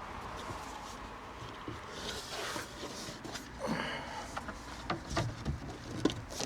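Quiet handling noises of panel fitting: two short scrapes or rustles, then a few light knocks and clicks as pieces of board and timber are moved and set in place.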